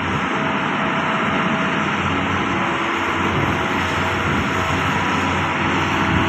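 Doosan DX220LCA excavator's diesel engine running steadily, a dense, even machine noise over a constant low hum.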